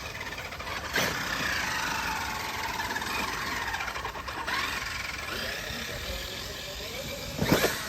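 Radio-controlled car's motor whining under throttle, its pitch rising and falling, with a sharp knock about a second in and a louder knock near the end.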